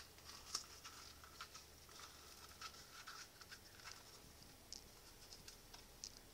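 Blue-and-gold macaw gnawing at a toy held in its foot: faint, irregular clicks and scratchy crunches from its beak.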